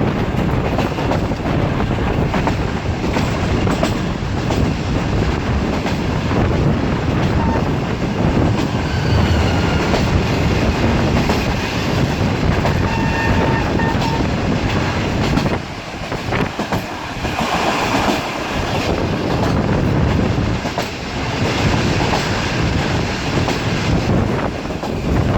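Sir Syed Express passenger train running at speed: a steady, loud rumble of wheels on the rails with clickety-clack from the rail joints.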